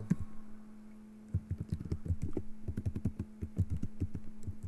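Typing on a computer keyboard: a quick run of keystrokes starting about a second and a half in, over a faint steady low hum.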